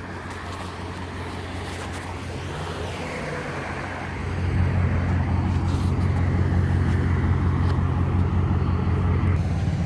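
A car's engine and road noise, a steady low hum that grows louder about four seconds in.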